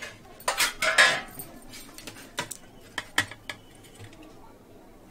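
Stainless steel plates and bowls clinking and clattering as food is served, with a loud clatter about a second in, then a few lighter separate clinks.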